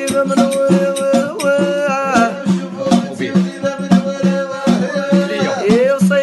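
Music with a steady percussion beat under a melodic lead whose pitches slide between notes.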